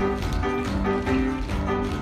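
Music with a steady beat, about two strokes a second, with dancers' feet tapping on a stage floor.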